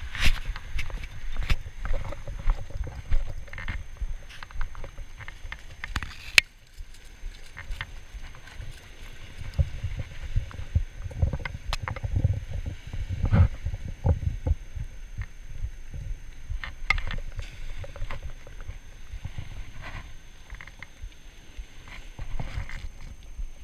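Gusty wind rumbling on a body-worn camera's microphone, with scattered clicks and knocks of handling; it eases briefly about six seconds in.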